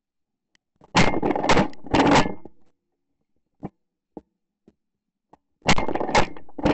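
Shotgun fired in quick strings: three loud shots about half a second apart about a second in, then another three shots near the end.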